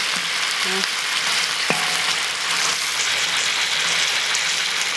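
Chunks of marinated pork belly sizzling in hot oil in a large black wok, seared on all sides before the marinade goes in, while a metal ladle turns them; the ladle knocks sharply on the wok once, just under two seconds in.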